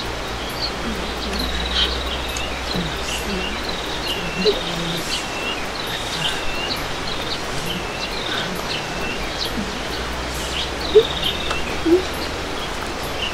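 Small birds chirping repeatedly, short high chirps every second or so, over a steady outdoor hiss. Two brief louder sounds stand out near the end.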